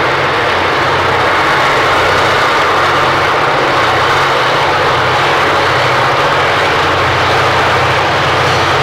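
V/Line N class diesel-electric locomotive N466, with further diesels behind it, approaching under power: a loud, steady engine drone that grows a little louder as it nears.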